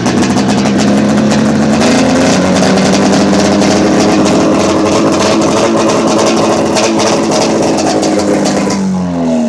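Polaris Indy 340 snowmobile's two-stroke engine running steadily just after being started, its pitch stepping up slightly about two seconds in. Near the end the pitch falls away as the engine winds down.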